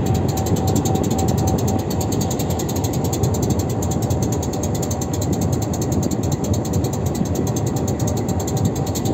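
Goods train rolling slowly, heard from on board: a steady heavy rumble with a fast, even mechanical rattle.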